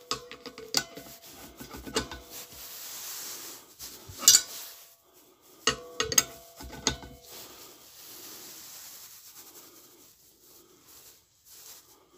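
Adjustable spanner clinking and scraping on brass gas-bottle fittings as an adapter is tightened onto the bottle valve. There are several sharp metal clinks, some ringing briefly, between stretches of softer rubbing.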